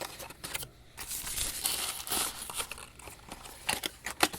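Plastic packaging crinkling and rustling as it is handled, with a few light clicks and taps.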